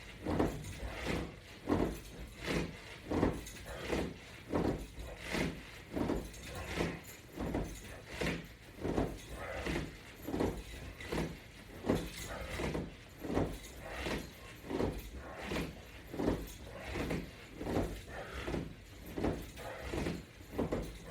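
Someone doing steady, fast crunches with resistance bands on a floor mat: a soft, even rhythm of short sounds, one about every two-thirds of a second.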